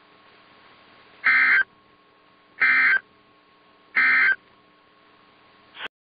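NOAA Weather Radio end-of-message signal: three short, identical bursts of warbling SAME digital data tones, about a second apart, marking the end of a warning broadcast. A faint steady radio hum runs underneath, and just before the end another burst begins and is cut off.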